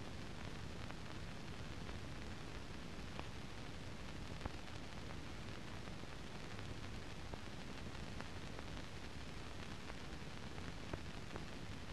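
Steady hiss with a few faint clicks scattered through it: the noise floor of a silent film transfer, with no recorded sound.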